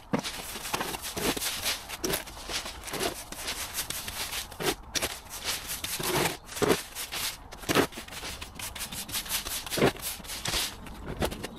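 Push brooms sweeping leaves and grit along a tarmac footpath: a run of short, scratchy strokes, several a second and irregularly spaced.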